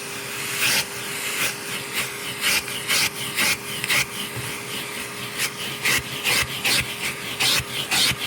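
Vacuum cleaner running over carpet: a steady motor tone under a rasping hiss that swells about twice a second as the head is pushed back and forth.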